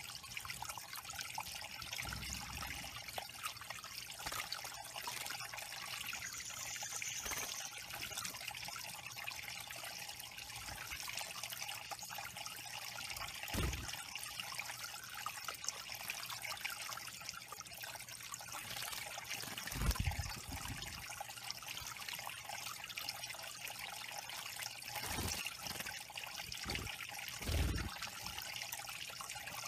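Steady trickle of water running over the rocks of a small garden pond, broken by a few brief splashes of small birds bathing. The loudest splash comes near the end, as a tufted titmouse flutters its wings in the water.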